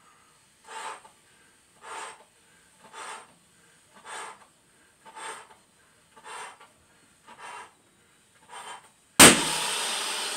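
Eight breaths blown by mouth into clear latex balloons, about one a second, then a loud bang about nine seconds in as a clear heart-shaped balloon bursts from over-inflation.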